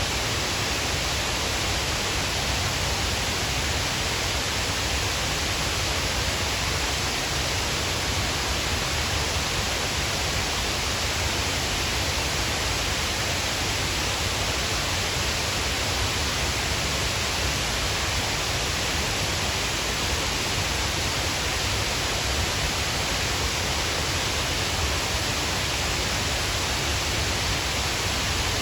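Shiraito Falls, a wide waterfall of many thin streams pouring over a cliff into a pool, making a steady, unbroken rush of falling water.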